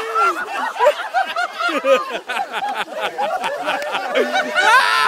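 A group of people whooping, cheering and laughing over one another, with no clear words, and a shrill rising yell near the end.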